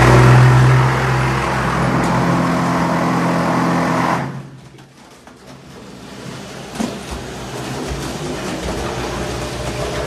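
Automatic wall-plastering machine running, its carriage drive motor humming steadily as it travels along the mast. The hum stops abruptly about four seconds in. It starts again a few seconds later with a click as the carriage moves back the other way.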